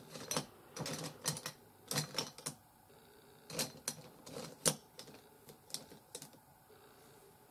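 Irregular light clicks and taps from a makeup brush and eyeshadow palette being handled, at an uneven rate, the loudest tap near the middle; they die away about six seconds in.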